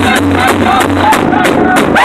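Powwow drum group: several men striking one large hide-headed powwow drum in unison with drumsticks, keeping a fast, steady beat, while singing together in high-pitched voices.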